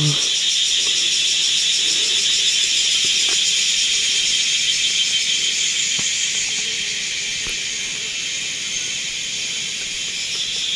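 A dense, steady chorus of night insects, shrill and high-pitched, with a few faint clicks of handling.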